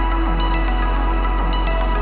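Background music: ambient electronic track with sustained synth tones over a steady low bass.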